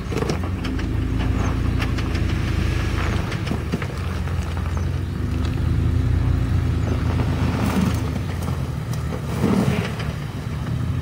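Jeep Wrangler engine running steadily at low revs as it crawls over loose rock, with scattered clicks and knocks of rock under the tyres.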